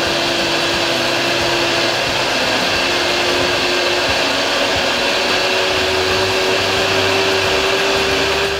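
Countertop blender running at full speed, grinding rice with coconut milk into batter: a loud, steady whir with a motor hum that edges slightly higher in pitch as it runs.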